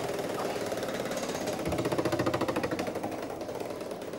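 Game-show prize wheel spinning, its metal pins snapping against the pointer flapper in a fast, even run of clicks.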